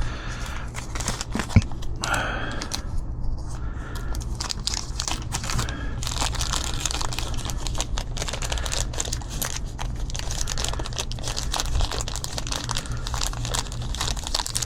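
Irregular rustling and crackling with many small clicks, from hands handling tools and parts at close range, over a steady low hum. One sharper click comes about a second and a half in.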